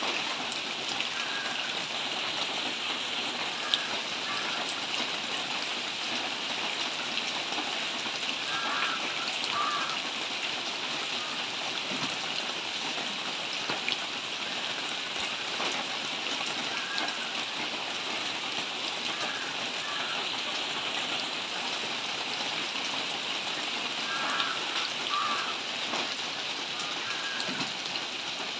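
Steady rain falling on trees and foliage: an even hiss of rainfall with an occasional louder drop hit.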